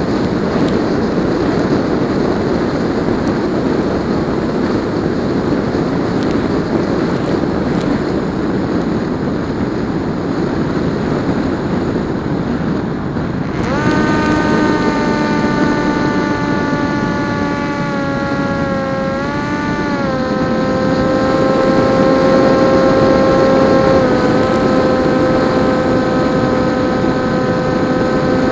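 Air rushing past the PopWing RC flying wing in flight. About halfway through, its electric motor and propeller start a steady whine that dips and recovers in pitch as the throttle is moved, then rises at the very end.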